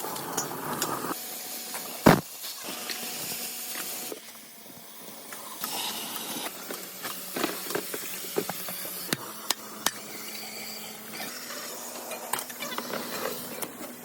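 Metal clanking and knocking over a steady hiss, with one loud bang about two seconds in and scattered lighter knocks after it.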